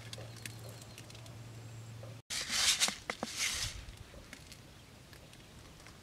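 Hands rustling leaves and scratching dry sandy soil while setting bait under a plastic-bottle bird trap: faint scattered clicks over a low hum at first, then after an abrupt cut a louder rustling, crackling burst of about a second and a half, trailing off into light scratching.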